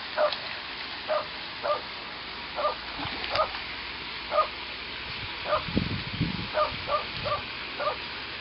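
A dog barking off to the side: about a dozen short, high yaps at an uneven pace, roughly one or two a second.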